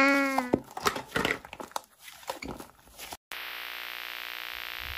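Slime being stretched and squeezed with scattered soft crackles and pops. About three seconds in, this gives way to a steady hiss of TV static noise, which cuts off just before the end.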